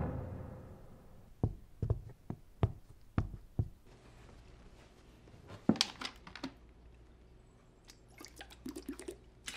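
Footsteps on a hard floor, six steps about two a second, then a plastic water bottle handled with a few sharp clicks and crackles. Near the end, gulps of water drunk straight from the bottle.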